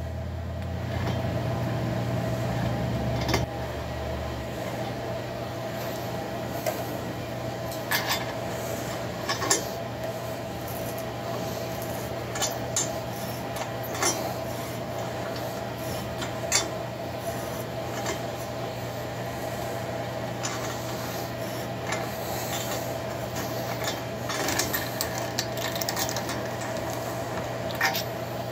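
A large NPT tap being turned by hand in a two-stroke cylinder's spark plug hole, cutting new threads: scattered metallic clicks and scraping over a steady background hum.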